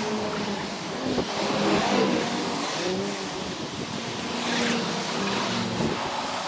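Road traffic: cars driving past close by, with engine notes that rise and fall as they go.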